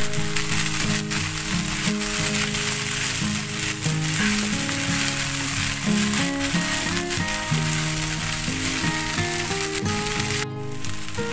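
Rice noodles and vegetables sizzling in a hot wok as they are tossed with a spatula, over background music. The sound briefly drops out about ten and a half seconds in.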